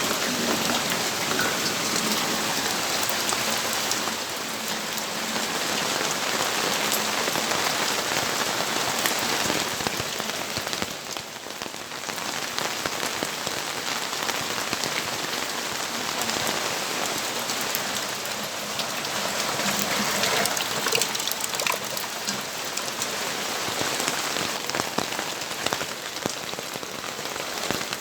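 Steady rain falling, a dense hiss of drops with individual drops ticking on hard surfaces, easing slightly for a moment a few seconds in and again around the middle.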